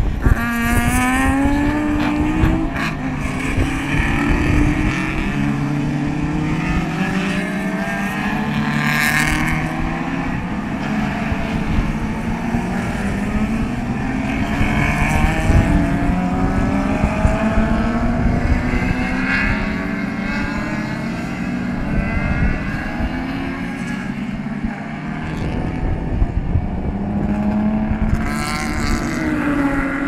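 A large pack of saloon race cars running through a hairpin, many engines overlapping, each rising in pitch again and again as the cars accelerate out of the corner and shift up.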